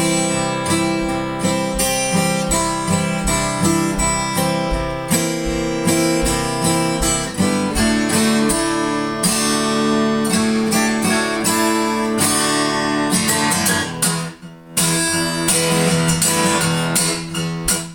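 Instrumental song passage led by strummed acoustic guitar, with a steady rhythm and a brief drop-out about three-quarters of the way through.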